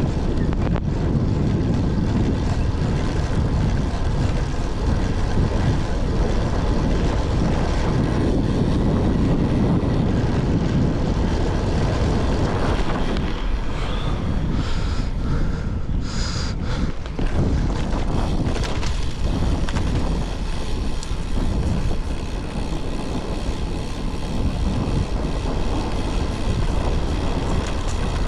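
Steady wind rumble on the microphone of a camera riding along on a road bike.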